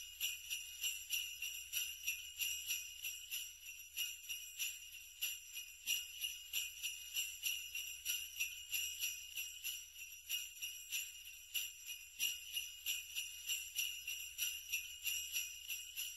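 Sleigh bells jingling, shaken in a steady even rhythm of a few shakes a second.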